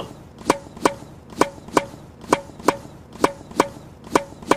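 Table tennis rally: a ping-pong ball hit back and forth, about ten sharp, evenly spaced clicks a little over two a second.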